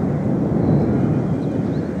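Thunder rumbling: a loud, low rumble that slowly fades.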